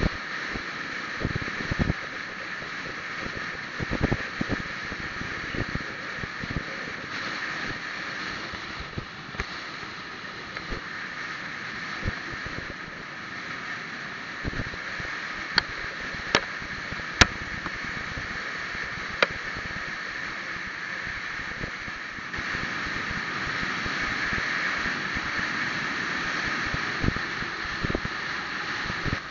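Steady rushing road and wind noise from a vehicle driving along a road, with a few sharp clicks in the middle and the noise growing a little louder about two-thirds of the way through.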